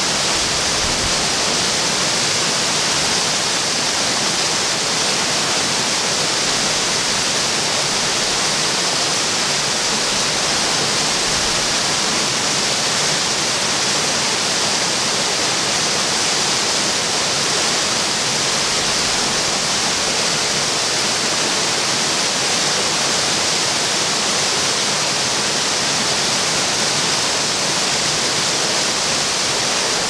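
Small cascades of a rocky creek spilling over low stone ledges into a pool: a steady rushing hiss of water that stays even throughout.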